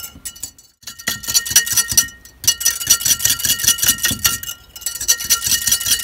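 A spoon stirring fast in a container, clinking and ringing against its sides, to dissolve hard Arabic soap and alcohol in water for a soap insecticide spray. The clinking starts about a second in and runs as rapid strokes, with a short pause after about two seconds.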